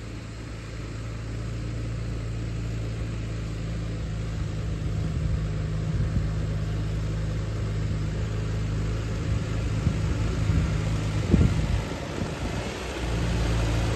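Allis-Chalmers D15 Series II tractor's four-cylinder engine running steadily as the tractor drives up, getting louder as it nears. Near the end the engine note drops briefly, then picks back up.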